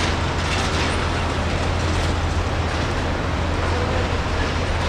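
Steady low rumble of jet engines at an airport, holding an even level without rising or falling.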